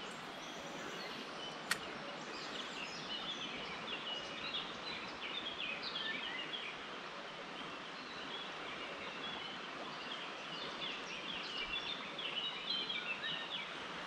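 Steady rushing of river water, with a small bird singing quick twittering phrases over it in two spells, early and again near the end. There is one sharp click about two seconds in.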